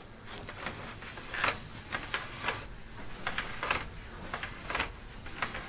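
Irregular clicks, knocks and scrapes, a dozen or so short sounds: sewer inspection camera gear being handled and its push cable fed into the waste stack.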